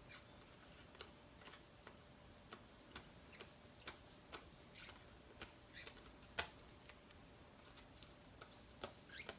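Basketball trading cards being flipped through one after another by hand, making soft, faint clicks about twice a second.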